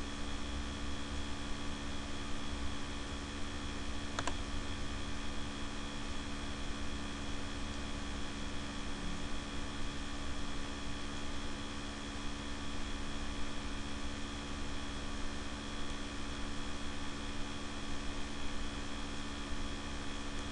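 Steady hum and hiss from a laptop cooler's fans, picked up by a very sensitive microphone, with a faint click about four seconds in.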